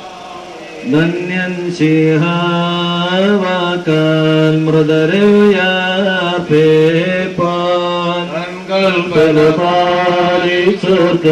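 Men chanting a funeral hymn of the liturgy, with long drawn-out notes that slide between pitches. It starts about a second in, after a brief pause.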